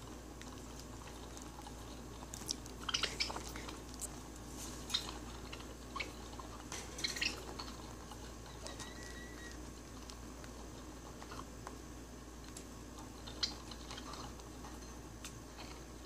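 Scattered soft clicks and brief high chirps from budgies, over a steady low hum, the busiest stretches a few seconds in and again around six to seven seconds.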